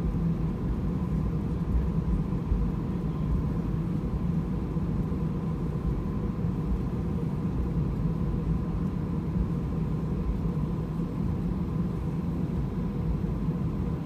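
Airbus A320 cabin noise as the airliner rolls along the runway after touchdown with its ground spoilers raised: a steady low rumble with a thin steady whine above it.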